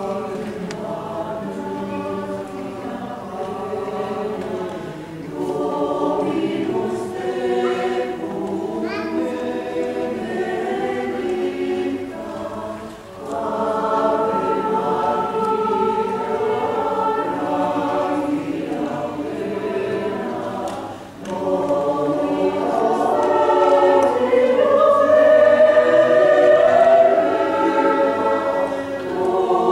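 Mixed choir of women's and men's voices singing unaccompanied in several parts, in long held phrases with two short breaks between them, and louder in the last phrase.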